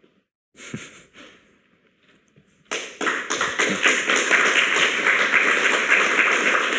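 Audience applause: a few scattered claps, then many people clapping together from about two and a half seconds in, continuing steadily.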